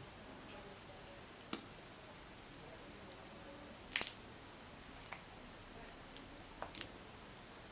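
A few scattered clicks and taps as a plastic acrylic paint bottle is handled over a small ceramic dish and paint is squeezed out. The sharpest click comes about four seconds in.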